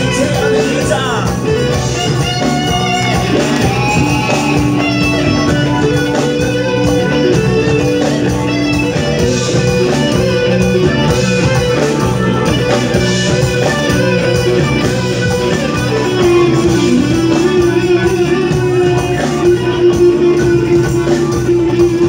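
Live rock band playing, with electric guitars and singing over drums.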